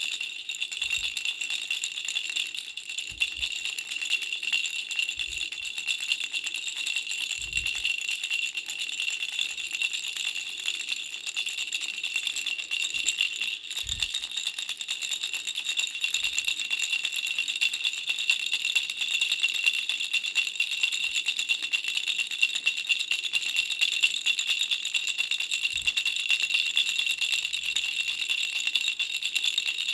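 Baby rattle shaken without pause, a steady high jingling. A few soft low knocks are heard along the way.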